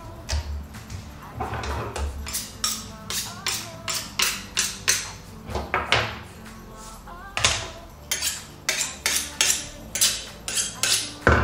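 Kitchen knife being sharpened against a hand sharpener: a run of quick metal scraping strokes, about two to three a second, ending in a heavier knock. Background music underneath.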